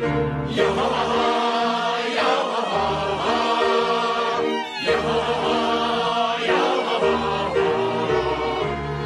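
Background music: a choir chanting over sustained notes, with a brief break about four and a half seconds in.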